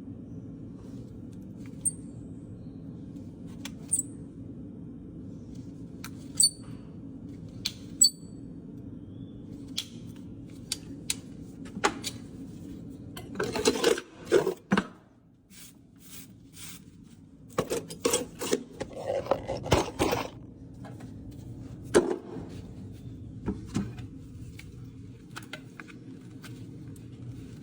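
Hoof nippers cutting the overgrown edge of a horse's hoof wall: single sharp snaps about every two seconds, then two quick runs of crunching cuts. A steady low hum runs underneath.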